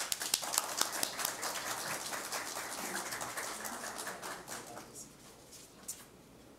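Audience applauding: a patter of many hand claps that thins out and dies away about five seconds in.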